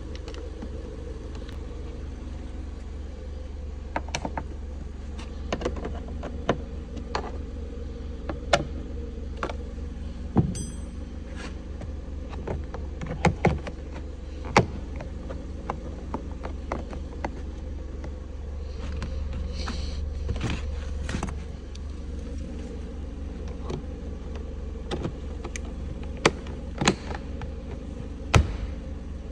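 Sharp plastic clicks and knocks as a Ford Focus front door trim panel is worked back on with a screwdriver and pressed into place around the armrest and window switch, over a steady low hum.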